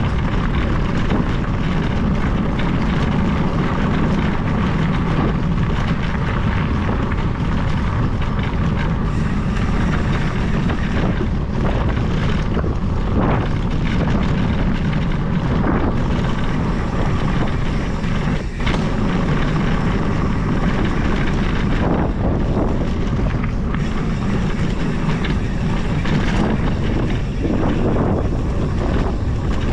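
Steady rushing rumble of wind on the camera microphone and tyres rolling over a gravel track, with a few short knocks from bumps.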